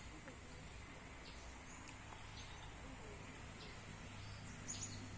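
Quiet outdoor ambience: a few faint, short bird chirps over a low steady hum.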